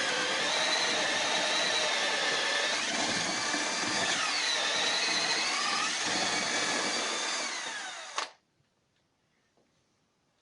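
Power drill boring a hole down into the floor for an anchor bolt, its motor pitch dipping and rising as it works, then stopping abruptly about eight seconds in.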